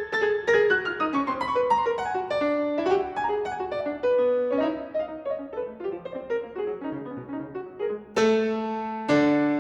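Background piano music: a flowing run of quick single notes, moving into slower, held chords near the end.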